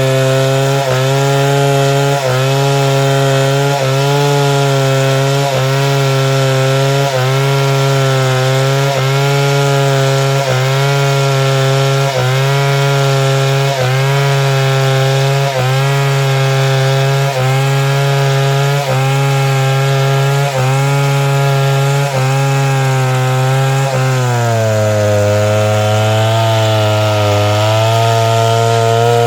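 Chainsaw cutting lengthwise through timber to rip boards, the engine running under load with its note dipping briefly a little more than once a second. Near the end the pitch drops lower and wavers.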